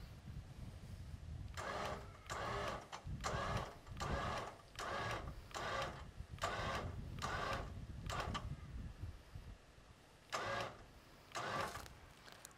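Electric 4x4 winch motor whirring in about a dozen short bursts of roughly half a second each, as it is jogged to load a synthetic winch rope up toward about a ton. A low rumble runs under the bursts.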